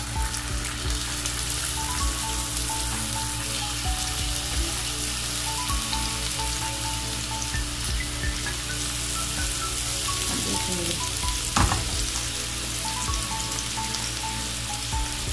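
Oil sizzling steadily in a nonstick frying pan as skewered minced-meat kebabs are laid in and shallow-fry, with one sharp knock about two-thirds of the way through.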